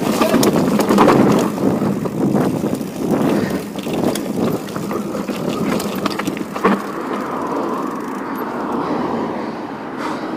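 Mountain bike clattering down a rough dirt trail: tyre noise over dirt and stones with a stream of rattles and knocks from the bike, one sharp knock about two-thirds of the way through. It then settles to a smoother, steady rush.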